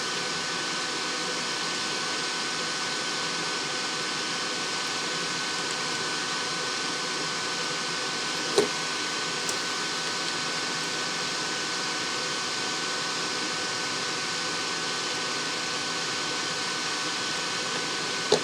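Steady fan-like hiss with a thin, high steady whine, and one light click about eight and a half seconds in.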